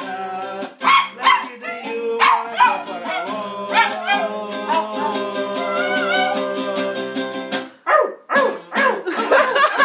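Yorkshire terrier howling and yipping along to a strummed small acoustic guitar, with a long, wavering howl through the middle.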